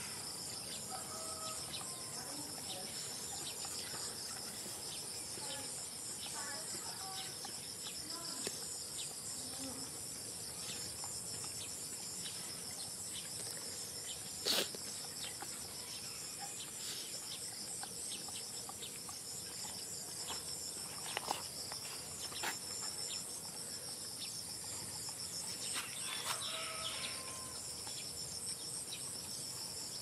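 Steady, high-pitched chirring chorus of insects such as crickets, pulsing without a break, with a few sharp clicks and a couple of faint short animal calls.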